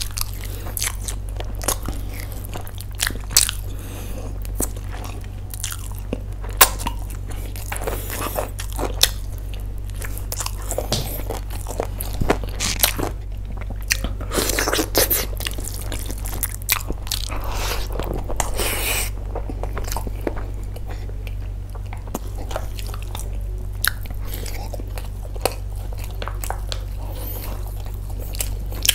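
Close-miked chewing and biting of chicken: many sharp, wet mouth clicks and smacks with crunches, and a few longer stretches of chewing noise.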